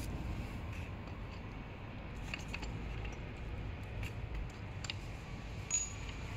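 A few light metal clicks and taps as the parts of an electric scooter's folding hinge are handled and fitted together, the sharpest near the end with a brief ring, over a steady low hum.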